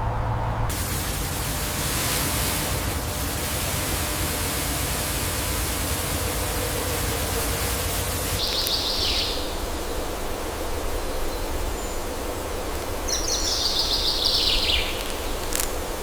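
Steady outdoor ambient hiss, with two short high chirping sounds, one about halfway through and a longer one near the end.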